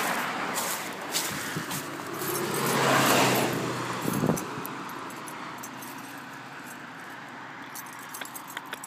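A passing car's road noise swells to a peak about three seconds in and fades away, over scattered small clicks and rustle from the camera being carried. A short knock comes just after four seconds.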